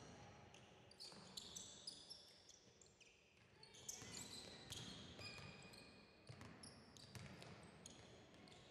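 Basketball players' sneakers squeaking on a hardwood court, many short high squeaks, with a basketball bouncing as it is dribbled.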